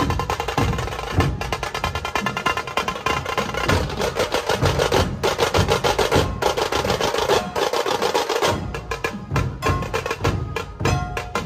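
Dhol tasha ensemble playing: fast rolling tasha strokes over heavy dhol beats. In the last few seconds the rolls break into more separate strokes.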